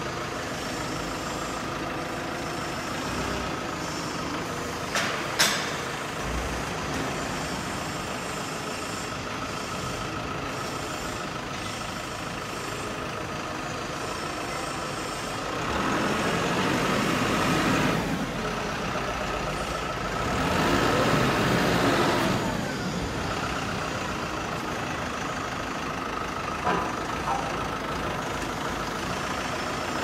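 A vehicle engine running steadily. It swells twice in the second half, as if revving or moving off. There are a couple of sharp knocks about five seconds in and another near the end.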